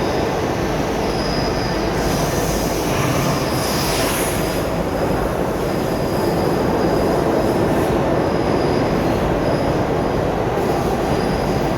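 Steady loud workshop machinery noise: a dense metallic rumble with a faint high whine that comes and goes, and a brief hiss about four seconds in.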